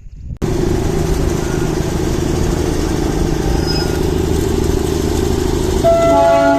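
Loud, steady low rumbling noise that cuts in abruptly, engine-like. Near the end a long, steady, horn-like note begins over it.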